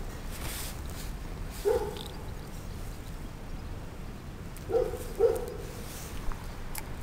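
A dog barking three times in short, single barks: once about two seconds in and twice in quick succession near five seconds. Under the barks runs the steady rush of a shallow stream, and there are a couple of small clicks near the end.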